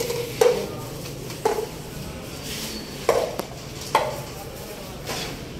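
Handling noise with about six sharp, irregular knocks and clacks of cups and containers being set down and moved about on a countertop.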